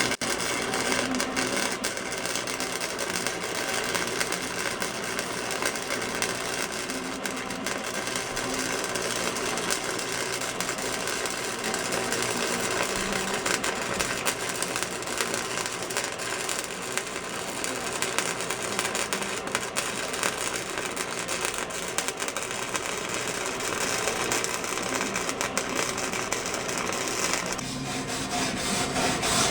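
Flux-core wire-feed welder arc crackling steadily as a bead is laid.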